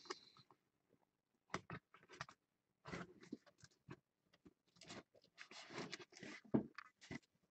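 Faint, scattered rustles and soft taps of a cardboard comic book box and comics being handled.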